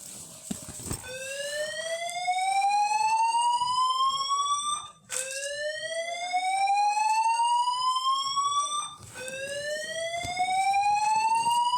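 Building fire alarm sounding a whoop evacuation tone: a rising electronic sweep of about four seconds, repeated after short breaks, three times.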